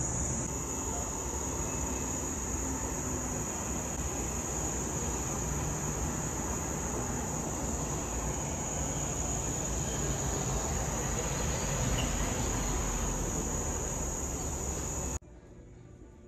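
Steady high-pitched insect chorus over a constant rushing background noise with a low rumble. All of it cuts off suddenly about a second before the end, leaving quiet room tone.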